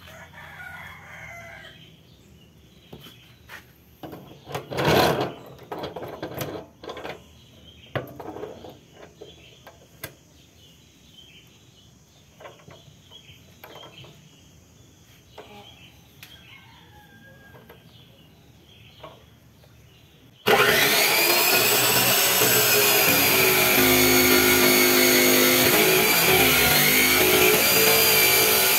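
Clicks and knocks of iron rods being set and clamped in a cut-off saw's vise, with a rooster crowing in the background. About two-thirds of the way in, a 14-inch MT Masaki abrasive cut-off saw starts abruptly and runs loud, its wheel grinding through an iron bar with a whine that wavers as it bites.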